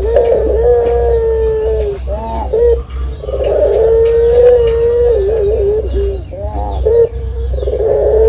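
Ringneck dove (puter) cooing in a long, high, drawn-out call. The notes are held steady for a second or two at a time, and twice break into a run of short quick notes before the long note comes back. A steady low hum runs underneath.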